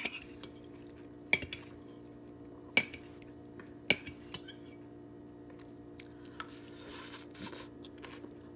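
A metal fork clinking against a plate while eating, four sharp clinks in the first four seconds, then a few fainter taps. A steady low appliance-like hum runs underneath.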